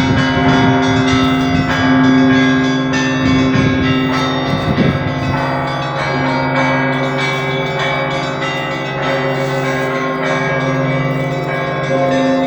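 Russian Orthodox church bells ringing together: many bells struck in quick succession over the long, steady hum of the great bell (blagovestnik).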